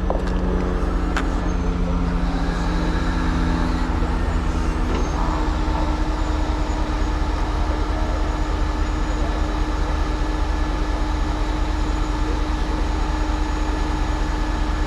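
Heavy crane truck's engine running steadily under load, its pitch shifting a couple of times in the first few seconds and then holding steady.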